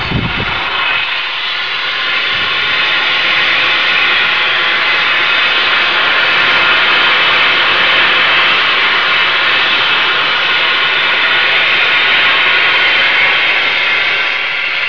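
Steam locomotive standing and venting steam in a loud, steady hiss.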